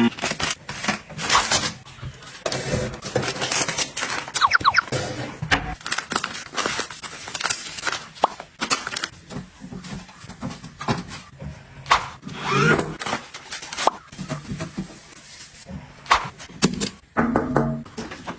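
Household items being handled, tapped and set down: a steady run of short clicks, taps and knocks, with a few brief squeaky or ringing tones in between.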